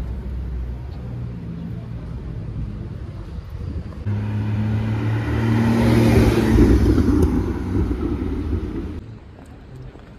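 Lamborghini Urus twin-turbo V8 running at low speed. About four seconds in it gives way abruptly to a Porsche Boxster's engine driving off, growing louder to a peak and easing again. About a second before the end the sound drops suddenly to quiet street noise.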